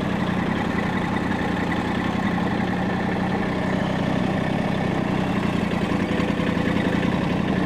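Massey Ferguson GC1710 compact tractor's three-cylinder diesel engine running steadily while the steering is turned with weight on the front loader; the motor bogs down a little under the steering load.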